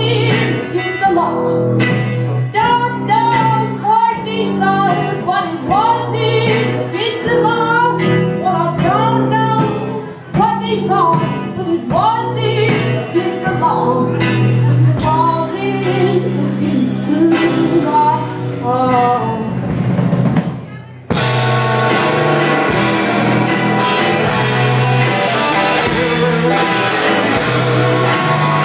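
Live band music: a woman singing over a hollow-body electric guitar, upright bass and drums. About 21 seconds in, after a brief drop, the band comes in louder and fuller.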